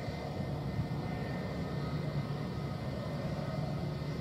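Airbus A321-231 taxiing, its two IAE V2500 turbofan engines at low taxi power: a steady low rumble with a faint thin whine.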